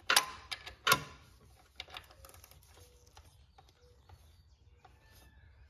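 A few sharp clicks and knocks of hands and tools working on the serpentine belt and tensioner in an engine bay, loudest in the first second, then faint scattered ticks.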